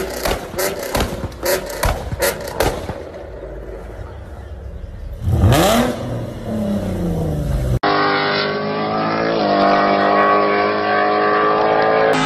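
A Ford Mustang's engine in a run of sharp pops and crackles, then one quick rev that rises and falls away. After a cut, an early-1960s Chevrolet Impala drag car's engine runs steadily, picking up a little midway.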